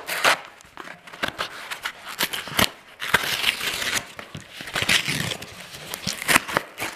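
A knife slicing through the cardboard of a shipping box in a string of irregular scratchy scrapes and clicks, then the cut cardboard being pulled apart with rustles and tearing.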